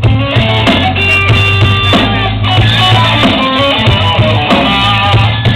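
Live band playing rock music with guitar and drum kit over a steady bass line, loud and continuous.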